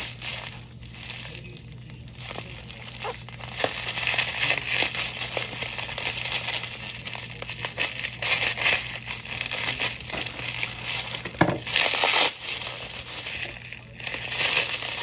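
Plastic bubble wrap crinkling and crackling as it is handled, cut open with scissors and pulled off a glass jar, louder from about four seconds in.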